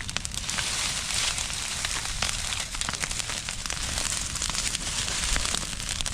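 Food frying in hot oil in a pan: a steady, dense sizzle dotted with many small crackles, growing louder about half a second in.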